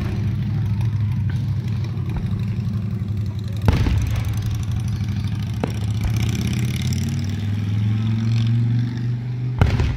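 Aerial fireworks bursting: a sharp bang a little under four seconds in and another near the end, with a fainter pop between. Under them a steady low engine hum runs throughout.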